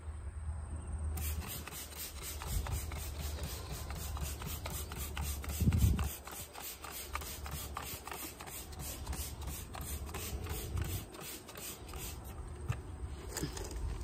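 Rapid, repeated rubbing strokes of a rag scrubbing driveway sealer off vinyl garage-door trim, with a dull thump about six seconds in.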